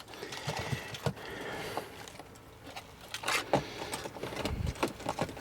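Light clicks, taps and a key jingling as the ignition and switches of a 2005 Mercedes G-Wagon are tried, with no response: the battery is dead.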